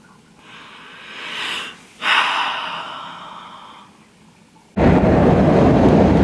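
A person draws a deep breath in, then lets it out in a long sigh that fades away. About three-quarters of the way through, a loud steady rush of road noise inside a moving car cuts in suddenly.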